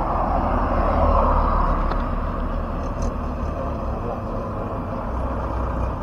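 Steady rushing wind and road noise while a touring bicycle is ridden along the road, with a low rumble on the microphone.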